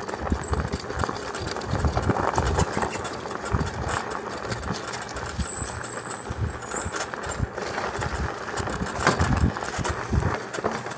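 E-bike being ridden over rough off-trail ground: tyre noise and jolting knocks with heavy wind rumble on the microphone, and brief thin high squeals now and then. The bike has a brake that is popping, which the riders are trying to trace.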